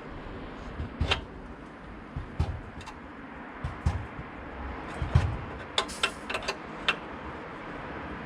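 Hand work on a car: scattered clicks and light knocks from tools and parts being handled, with a quick cluster of clicks about six seconds in.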